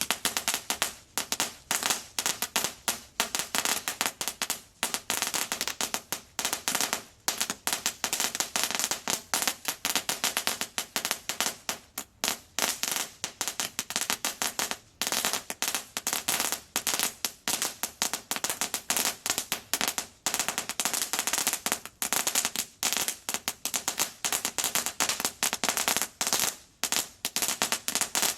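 A 90 Second Crackling Assault crackling fountain firework throwing out crackling balls, which burst in a dense, unbroken stream of sharp pops and crackles.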